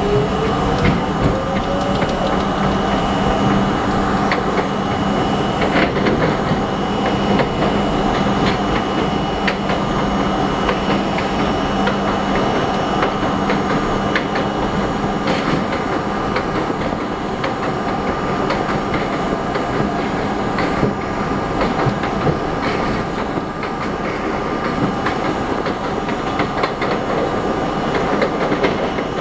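R32 subway car running at speed along elevated steel track, its wheels clicking over rail joints. A whine rises in pitch over the first few seconds as the train picks up speed.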